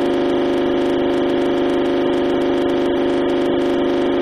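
Loud, steady electronic buzz: one unchanging pitch with overtones, of the kind a stuck digital recording makes under a frozen picture.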